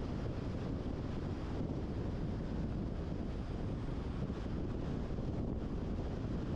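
Steady rush of wind on the microphone and tyre noise from a car driving at road speed.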